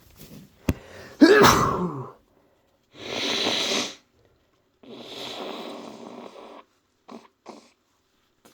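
A person with a cold sneezing once, a sudden loud sneeze about a second in with a voiced, falling end. Two long noisy breaths and two short sniffs follow.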